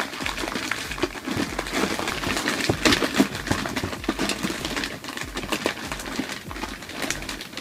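A hand rummaging through a bucket packed with foil blind bags and plastic capsules: packets crinkling and capsules clicking against one another in quick, irregular bursts.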